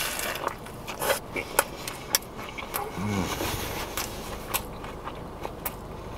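Biting into and chewing a crispy fried chicken sandwich: a series of sharp, separate crunches, with a short hummed "mm" about three seconds in.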